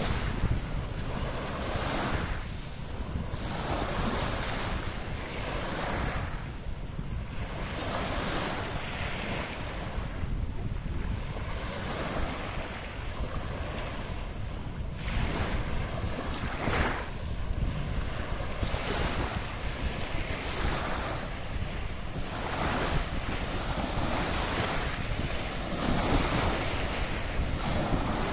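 Wind buffeting the microphone in repeated gusts over a steady rush of sea water.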